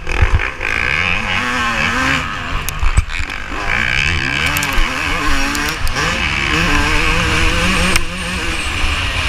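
Yamaha YZ250 two-stroke motocross engine revving hard under race load, its pitch rising and falling repeatedly as the throttle opens and closes through the gears, heard from on the bike. A few sharp knocks near the start and about three seconds in.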